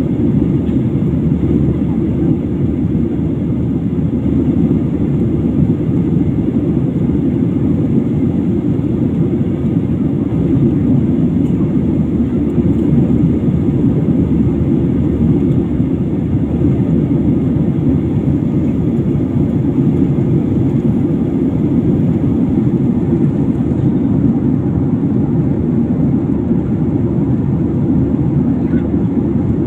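Steady low drone of engine and airflow noise inside a passenger airliner's cabin.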